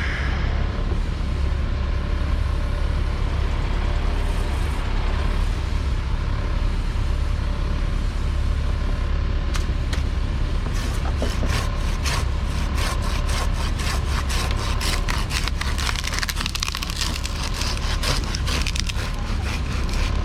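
A work vehicle's engine running steadily, with a dense run of sharp clicks and cracks starting about ten seconds in.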